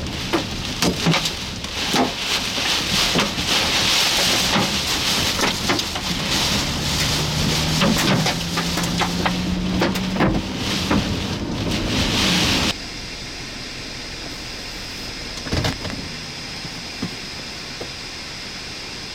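Heavy storm rain beating on a vehicle, with many sharp hits against it. The loud pelting stops abruptly about two-thirds of the way through, leaving a steadier, quieter storm noise with a single thump near the end.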